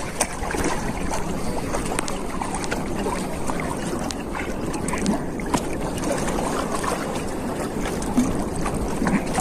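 Steady rushing noise of sea water around a small float out on the water, with wind rumbling on the microphone and a few faint ticks.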